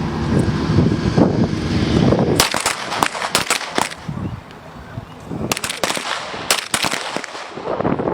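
M17 9 mm pistols firing on a range: a dozen or so sharp shots from several shooters in two quick clusters, starting about two and a half seconds in. A dense low rumble fills the first two seconds.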